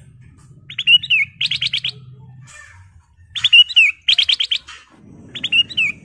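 Ruby-throated bulbul (kutilang emas) singing loud, clear repeated phrases. Each phrase is a slurred whistled note followed by a fast run of about five notes, three times over.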